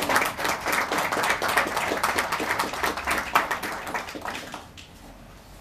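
Audience applauding, a dense patter of hand claps that thins out and dies away about five seconds in.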